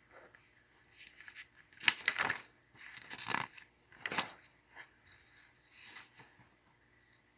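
Paper being handled: workbook pages rustling in several short bursts, the loudest about two seconds in.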